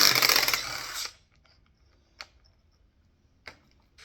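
A tool running a bolt out of the engine in a burst of about a second of dense, fast clicking, then two faint clicks of metal parts being handled.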